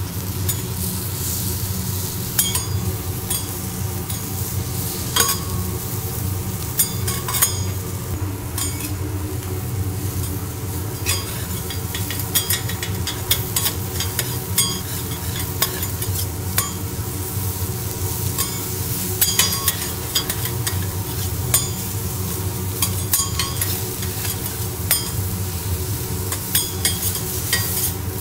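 Butter and vegetables sizzling on a hot steel teppanyaki griddle while metal spatulas scrape and tap the plate, giving frequent sharp clicks at irregular intervals. A steady low hum runs underneath.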